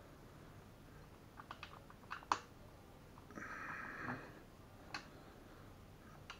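Small plastic clicks and taps as hands handle the base and wiring of a ceiling lamp held overhead, a quick run of them about two seconds in, the sharpest near the middle of the run, with a breath about a second later and a few more clicks near the end.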